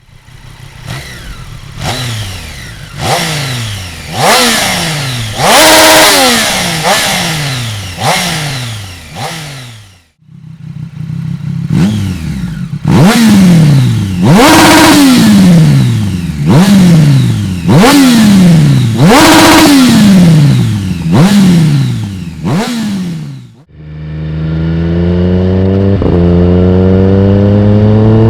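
Triumph Street Triple 765 RS's inline three-cylinder engine breathing through a Dominator HP2 aftermarket exhaust, revved hard in quick throttle blips about once a second, each rising sharply and dropping back. Near the end it changes to a steady acceleration, with the pitch climbing smoothly.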